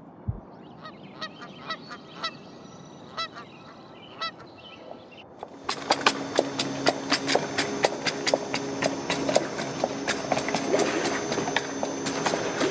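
A series of short honking bird calls over quiet ambience. About five seconds in, a louder street ambience takes over: many footsteps and clatter on stone paving over a steady low hum.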